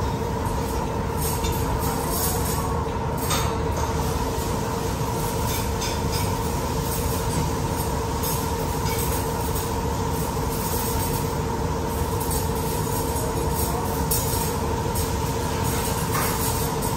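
Steady mechanical rumble and hiss with a constant two-pitch hum, like a large fan or ventilation unit running, with a couple of faint clicks.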